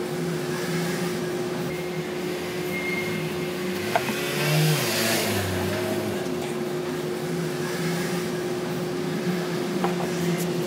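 Steady machine hum with engine-like background noise, swelling briefly into a louder rush about four to five seconds in, with a single click just before it.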